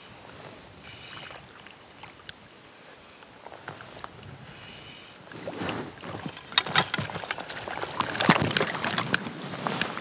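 A hooked trout splashing and thrashing in shallow water as it is played in to the net, getting louder through the second half with sloshing and sharp knocks. Before it, two brief high buzzes.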